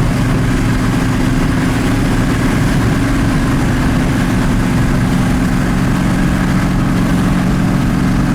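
Car engine and road noise inside the cabin while cruising at highway speed: a steady low drone.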